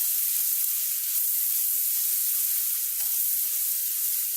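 Garlic-ginger paste sizzling in hot mustard oil in a kadhai as it is lightly fried; a steady high-pitched hiss with faint crackles.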